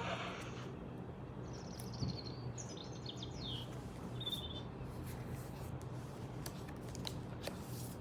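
Short electronic birdsong chirps from a children's sound book's small speaker, over a low hum, with a few sharp clicks of pages or buttons being handled.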